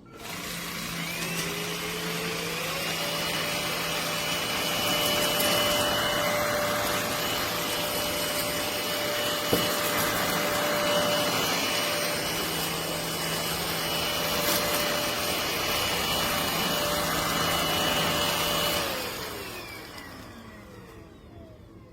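NADALY 500 W cordless stick vacuum switched on: its motor spins up to a steady whine within about three seconds and runs with a loud rush of air. It is switched off near the end, and the whine falls away as the motor spins down.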